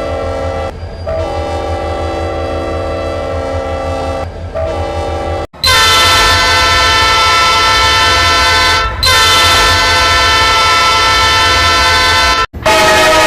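Train air horns sounded in long test blasts, each a chord of several notes. A quieter horn over a low rumble, with two brief breaks, cuts off abruptly about five seconds in. A louder, higher-toned horn follows with a short dip midway, and after another abrupt cut a third horn starts near the end.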